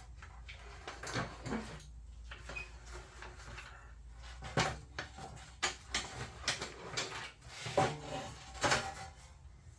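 Irregular knocks, clanks and rattles of a part being handled and worked at a workbench, the sharpest knocks coming in the second half.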